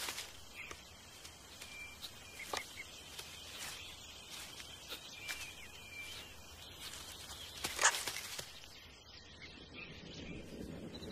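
Forest ambience with scattered short, sharp animal calls (clicks and brief chirps), the loudest about eight seconds in.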